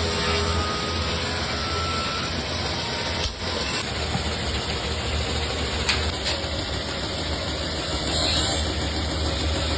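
Workshop machine motor running steadily with a low hum, dipping briefly about three seconds in.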